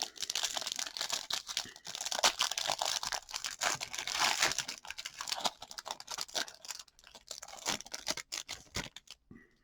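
Wrapper crinkling and tearing as a trading-card set is unwrapped and its cards handled. The crackling is dense for about five seconds, then thins to scattered crinkles and stops shortly before the end.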